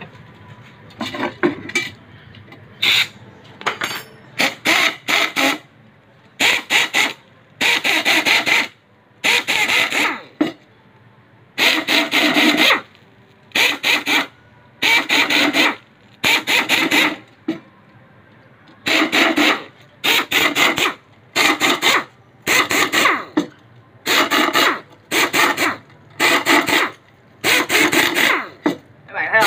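Metal being filed on a motorcycle camshaft as it is reshaped. Repeated rasping strokes come roughly one a second, often in pairs, with short pauses between them.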